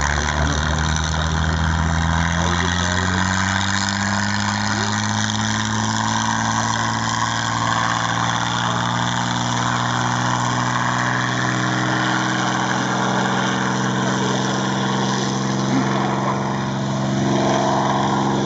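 The Packard Merlin V-1650-7 V12 engine of a P-51D Mustang running at low taxiing power. Its pitch rises a little over the first few seconds, then holds steady.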